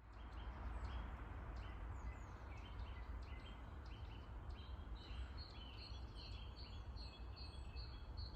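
Several birds singing, with short repeated notes, over a faint steady rumble of distant road traffic.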